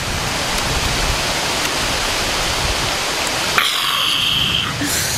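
Steady rushing of flowing stream water. About three and a half seconds in, the man gives a short breathy exclamation with his mouth wide open, and a weaker one follows near the end.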